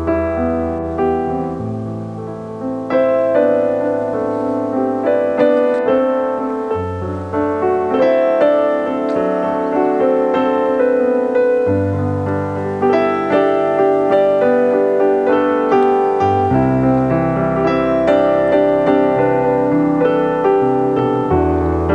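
Background piano music, a melody over a bass line that steps to a new note every few seconds.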